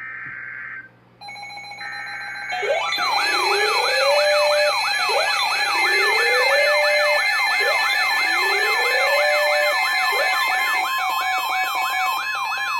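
Emergency Alert System tones: a few short buzzing data bursts of the digital alert header, then a loud electronic siren-style attention signal. In it a fast up-and-down wail about three times a second is layered over a slower rising sweep every couple of seconds and steady high tones. It heralds a new severe thunderstorm warning.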